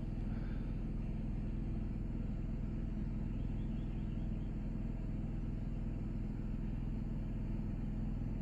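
RV generator running steadily as a low, even hum, with the rooftop air conditioners switched off.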